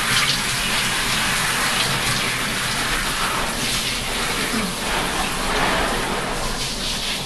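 Handheld shower sprayer running steadily, water spraying onto a dog's long wet coat and splashing into the bathtub as the soap is rinsed off.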